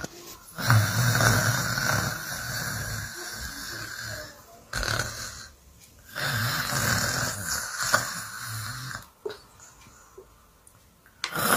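A person snoring: two long snores, the first from about a second to four and a half seconds in, the second from about six to nine seconds in, with quieter breathing between and after.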